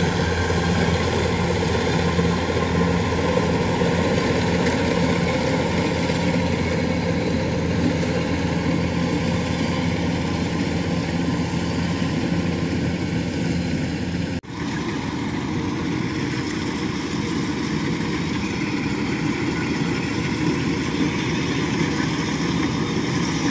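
Diesel engine of heavy rice-harvesting farm machinery running steadily with a constant low hum. About two-thirds of the way through the sound drops out for an instant, and the engine note is slightly different afterward.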